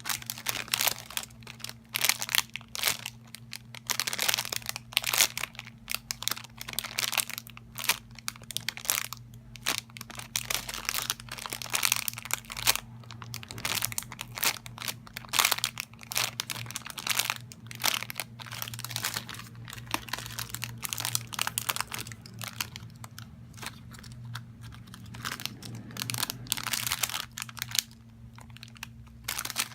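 Plastic wrapping crinkled and crunched by hands in dense, irregular bursts, over a steady low electrical hum.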